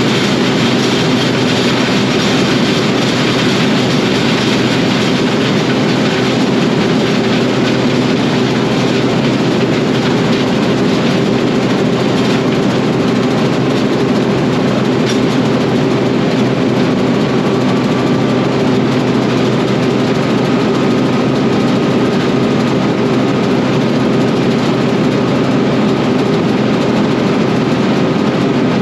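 Combine harvester running with its threshing and separating drives engaged, a loud, even machine noise, on a test run after a new countershaft belt was fitted, working through the crop material left inside. A faint steady whine joins about two-thirds of the way in.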